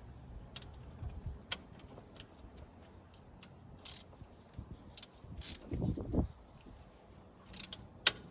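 Long-handled socket ratchet working a spark plug: scattered sharp clicks, with a short low groan from the ratchet about six seconds in and a loud click near the end.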